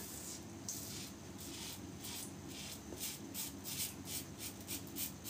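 Vintage 1930 Gillette New open comb safety razor with a Supermax blade scraping through lathered stubble in a quick run of short strokes, about three a second, on the first pass with the grain.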